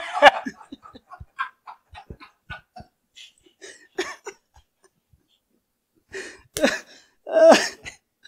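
Men laughing hard: a loud burst of laughter, then a run of short breathy laughs that trail off, and louder laughter again near the end.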